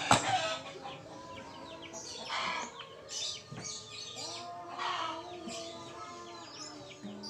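Hens clucking and small birds chirping, over the soft, fading ring of an acoustic guitar's strings after a sharp strike at the very start. The guitar is a solid pine-top, rosewood-back acoustic.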